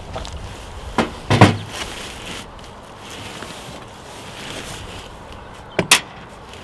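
Sharp plastic clicks and knocks as a 3D-printed cable cover is pressed into place on a window frame: a pair about a second and a half in, and another pair near the end, over a low steady background.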